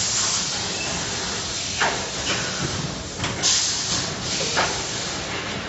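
Tyre-making machine at work as rubber is worked onto its drum: a steady mechanical hiss, with a few short squeaks that drop in pitch and a burst of hissing air about three and a half seconds in.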